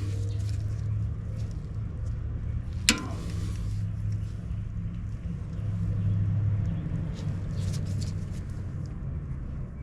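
A steady low rumble throughout, with one sharp click about three seconds in and a few faint clicks near the end: hand tools knocking against the diesel starter and its mounting bolts.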